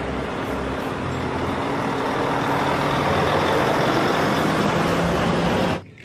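A convoy of diesel semi-trucks driving on a road, their engines running with a steady drone over the rush of tyres that grows louder through the first few seconds. The sound cuts off suddenly shortly before the end.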